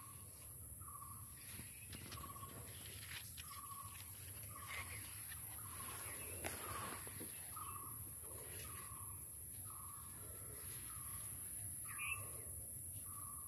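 A bird repeating a single short note about once a second, over a steady low rumble.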